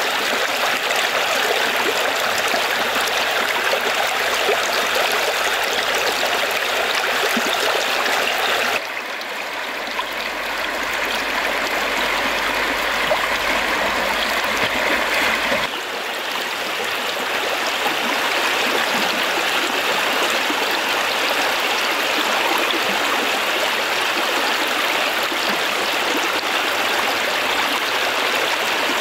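Shallow stream rushing steadily over rocks, a dense, continuous water noise. Its tone shifts abruptly twice, about 9 and 16 seconds in.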